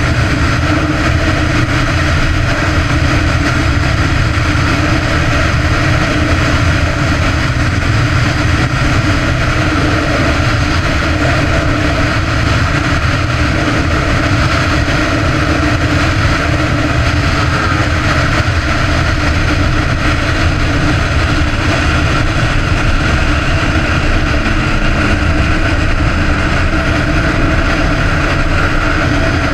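Sport motorcycle engine running steadily at cruising speed, heard from on board the bike, with heavy wind rush on the microphone.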